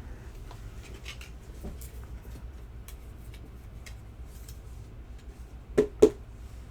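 Trading cards and plastic card holders handled on a table: faint light clicks and rustles, then two sharp knocks in quick succession near the end.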